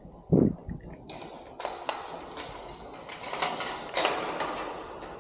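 A dull thump, then a run of sharp metallic clinks, rattles and scrapes as metal hardware and tools are handled while fitting a locking loop to a storage cage.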